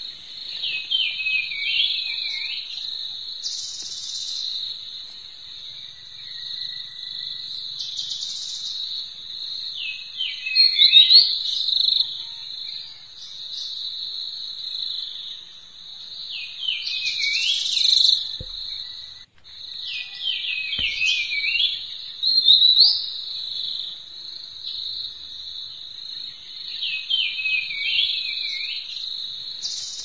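Steady high insect trilling, with short runs of falling chirping notes, bird-like, recurring every few seconds. Faint rustles of hands handling dry grass and twigs on the ground.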